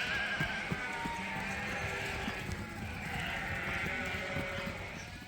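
Many sheep bleating over one another, with scattered short knocks from the animals moving about.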